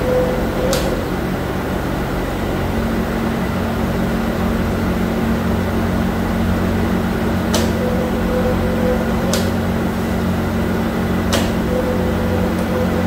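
Steady hum of running factory machinery with several held tones, one more tone joining about three seconds in, and four sharp clicks scattered through.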